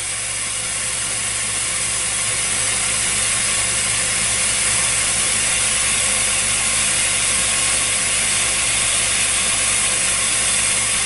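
Gas torch hissing steadily as it heats glass tubes spinning in a SincTech ADV-2A glass lathe, over the lathe's steady mechanical hum; the hiss swells a little over the first few seconds, then holds.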